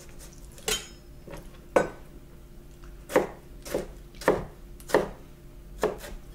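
Chef's knife slicing a tomato on a cutting board: about seven separate knocks as the blade goes through and meets the board, irregularly spaced.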